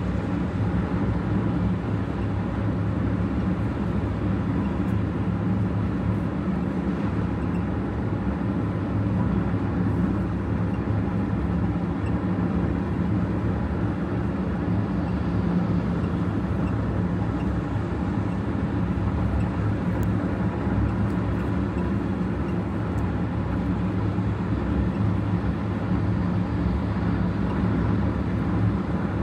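Steady road and engine noise inside a moving car's cabin, a low even drone.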